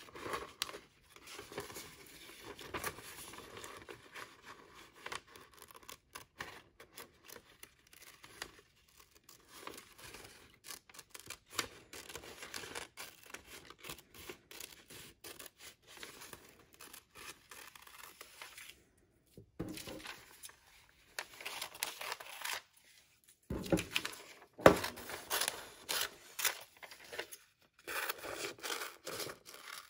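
Scissors snipping through newspaper in irregular runs of cuts, with the paper rustling as it is turned in the hand.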